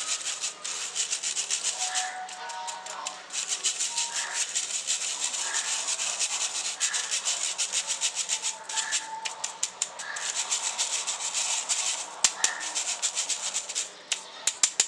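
Wire whisk stirring flour and sugar through a stainless steel mesh sieve: a fast, steady rasping of wire on mesh, stroke after stroke, with a few sharper taps near the end.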